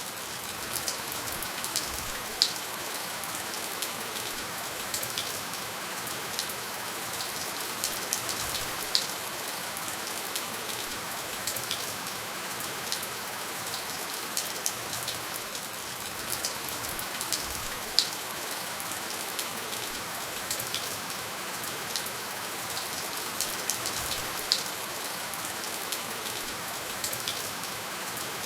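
Steady rainfall with no thunder: a constant hiss of rain with frequent individual drops ticking, a few of them sharper and louder than the rest.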